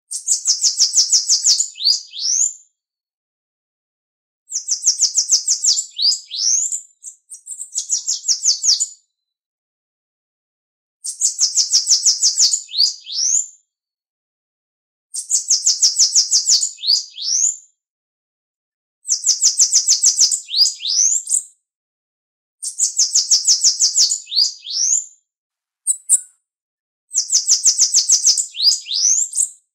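Bananaquit (Coereba flaveola) singing: a high, rapid buzzy run of notes ending in a few quick upslurred notes, each song about two and a half seconds long, repeated about seven times with short silent gaps between.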